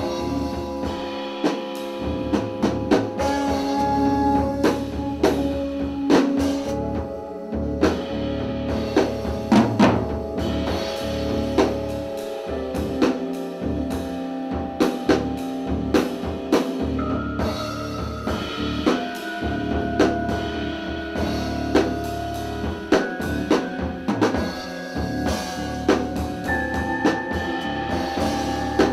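Live improvised music from a trio: a drum kit played in loose, irregular hits under held tones that step to new pitches every few seconds.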